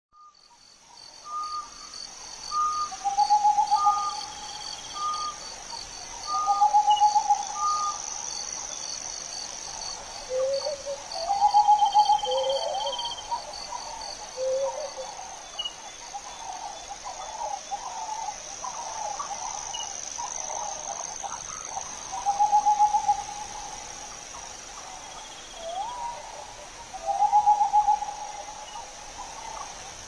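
Owl calls: short wavering hoots about a second long, repeated every few seconds, with shorter higher and lower notes between them. A steady high chirring of crickets runs underneath.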